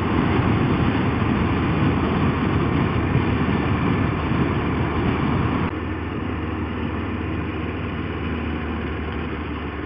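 Motorcycle riding noise picked up by a helmet camera: steady wind rush mixed with the engine running at road speed. About six seconds in it cuts abruptly to a slightly quieter recording of the same kind, from a second helmet camera.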